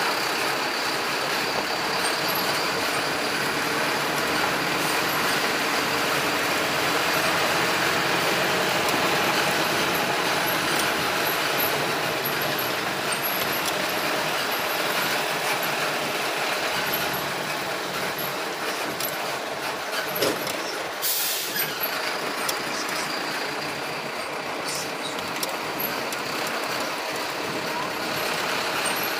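Busy city street ambience: a steady wash of traffic noise from cars, trucks and motorbikes, with a short sharp hiss about two-thirds of the way through.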